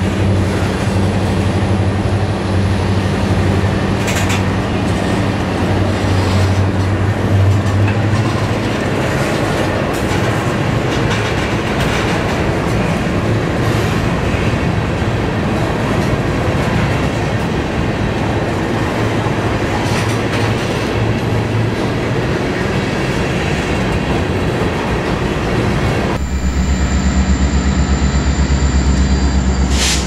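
Freight train of covered hopper cars rolling past at speed: a steady loud rumble with wheel clatter over the rail joints. About four seconds before the end the sound changes suddenly to a diesel locomotive engine running, with a strong low drone and a high steady whine.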